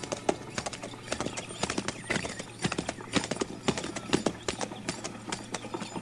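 Horses' hooves clopping on a street, a quick, irregular run of overlapping hoofbeats.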